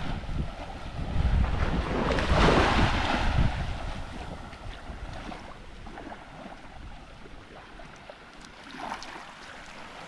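Small waves lapping and washing up on a sandy beach, with wind buffeting the microphone. The loudest wash comes about two seconds in, then it settles to a softer lapping.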